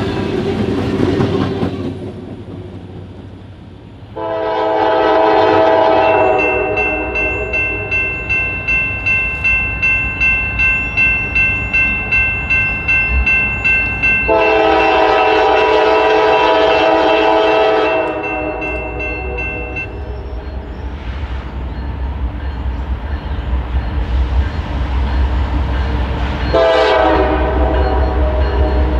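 Diesel locomotive's multi-note air horn sounding three long blasts, about 4 s in, about 14 s in and near the end, with the locomotive bell ringing at about one and a half strokes a second between them. A low rumble of the train on the rails grows through the second half.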